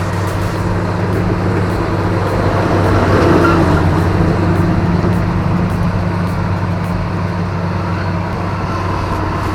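Diesel engine of a heavy earthmoving machine running steadily under load, swelling a little about three seconds in.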